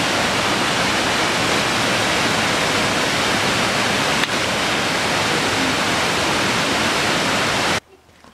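Waterfall pouring into a rocky pool: a steady, loud rushing of falling water that cuts off abruptly near the end.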